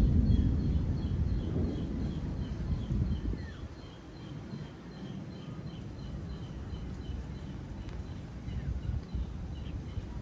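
A roll of thunder fading away over the first few seconds, leaving a low, uneven rumble. A faint high chirp repeats about three times a second through most of it.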